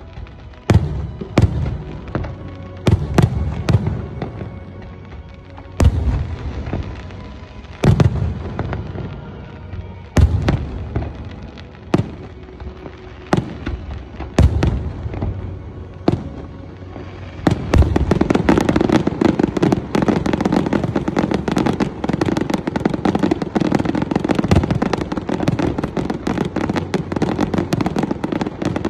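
Aerial fireworks display: single shells bursting with sharp bangs and echoing tails every second or two, then a little over halfway through a rapid, continuous crackling barrage of many bursts at once.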